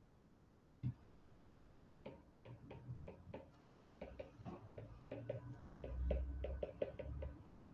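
Stylus tapping and clicking on a writing tablet as equations are handwritten: one lone click about a second in, then a quick irregular run of light clicks, with a few low bumps around six seconds in.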